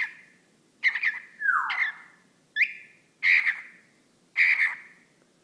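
Whiteface lutino cockatiel calling: a string of short chirps and squawks about once a second, with one downward-gliding whistle about a second and a half in.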